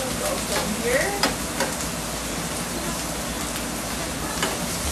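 Food sizzling steadily on a hot steel flat-top griddle. A metal spatula scrapes and clicks against the steel several times in the first second or two and once more near the end.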